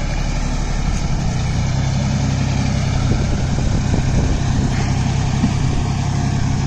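John Deere 5045D tractor's three-cylinder diesel engine running steadily under load, driving a Maschio 54-blade puddling rotary tiller that churns the flooded paddy mud and water.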